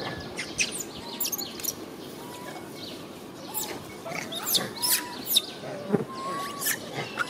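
Birds chirping: many short, high chirps scattered throughout, with a few brief whistled notes in between.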